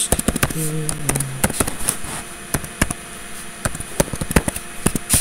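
Typing on a computer keyboard: quick, irregular key clicks, several a second.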